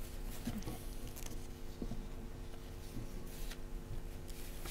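Faint rustling and small taps of sheets of paper being handled and sorted at a desk, over a steady electrical hum.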